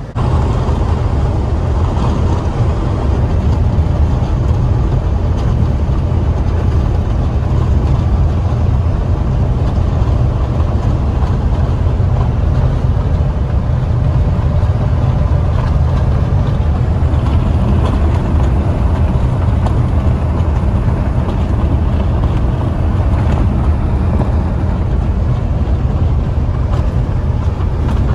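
Steady low rumble of a box truck driving on the highway, its engine and road noise heard from inside the cab, unbroken throughout.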